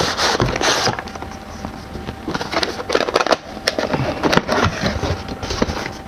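Box and packaging of a graphics-card water block being opened and handled by hand: irregular rustling with many small clicks and crackles.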